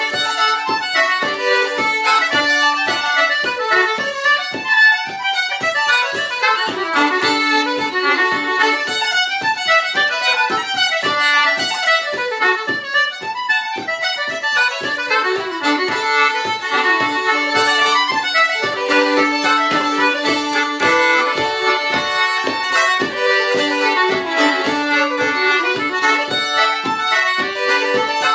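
Fiddle and concertina playing a traditional Irish reel together, a steady stream of quick, even notes.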